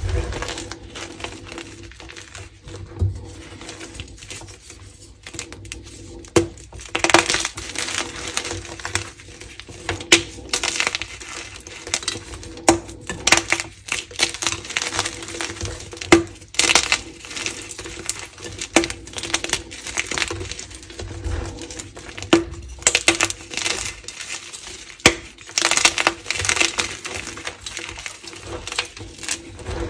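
Blocks of gym chalk, dusted with pigment powder, being crushed and crumbled by hand into a pile of broken pieces: irregular crunching and crackling with clinks of hard chalk fragments knocking together.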